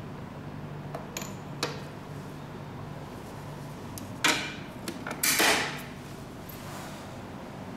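Hard knocks and clatter of handling at a laboratory COD reactor, over a steady low hum. There are two light clicks early on, a sharp knock about four seconds in, and a louder rattling clatter about half a second long near five and a half seconds.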